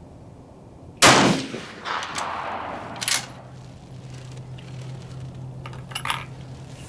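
A single rifle shot from a Gruning Precision rifle, sharp and loud, with its echo trailing off over about two seconds. A few short sharp clicks follow, about two and five seconds later.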